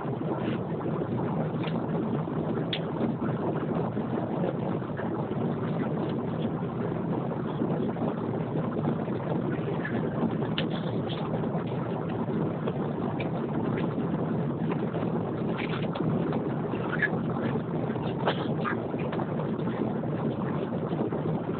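Steady cabin noise of an Airbus A330-300 on final approach with flaps down, heard from inside the cabin over the wing: an even rush of engine and air noise, with a few faint clicks.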